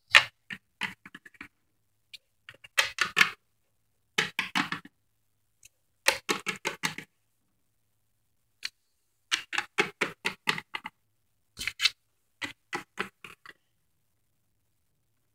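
Plastic Littlest Pet Shop figurines tapped quickly on a hard shelf to act out walking: short runs of rapid clicks, seven or so, with brief pauses between.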